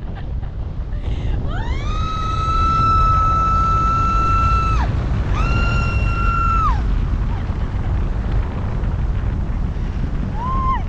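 Wind rushing over the camera microphone in paragliding flight, with two long high-pitched cries of excitement from a passenger, the first about three seconds long and the second shorter, each sliding up at the start and falling away at the end; a brief third cry comes near the end.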